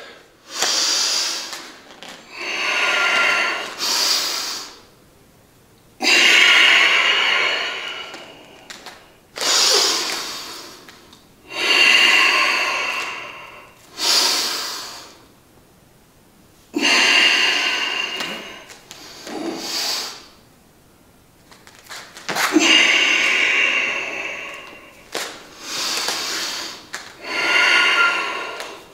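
A man breathing audibly in and out in a slow, even rhythm, about a dozen breaths of one to two seconds each with short pauses between: breath-paced yoga, each inhale or exhale marking the next step of the flow.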